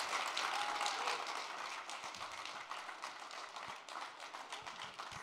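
Audience applauding, the clapping slowly dying away.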